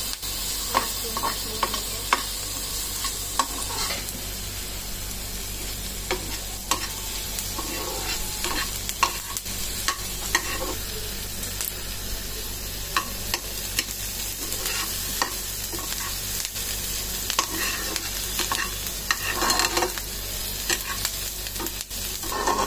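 Chopped onions sizzling steadily in ghee and butter in a frying pan as they are sautéed toward golden, with a metal spatula scraping and clicking against the pan as they are stirred.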